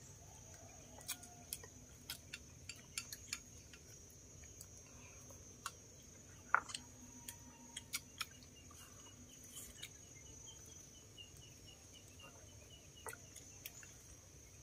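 Faint, scattered clicks of chopsticks against small ceramic rice bowls and plates during a meal, the sharpest about six and a half seconds in. Under them runs a steady high insect drone, with runs of quick soft chirps at times.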